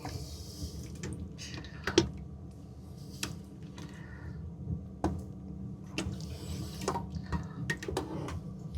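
Spoon clinking and scraping in a pot of beef stew as it is dished out and eaten, a handful of sharp clinks with soft liquid stirring between them, over a steady low hum.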